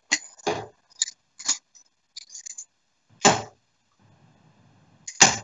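Steel-tip darts striking and being pulled from Winmau Blade 5 bristle dartboards: a string of short, sharp knocks, the loudest near the end.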